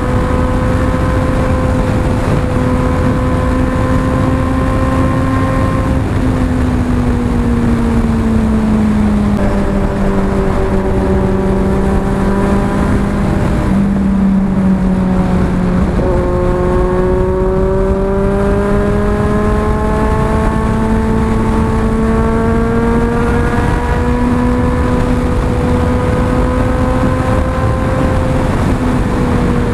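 Motorcycle engine pulling hard at motorway speed, heard from the rider's helmet camera with heavy wind rush over it. The engine note sinks slightly about a fifth of the way in, then climbs steadily back up through the second half.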